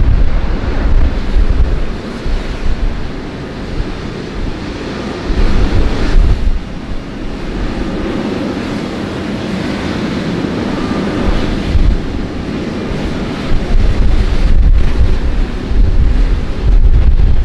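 Wind buffeting the microphone in heavy gusts near the start, around six seconds in and again near the end, over a steady rushing noise.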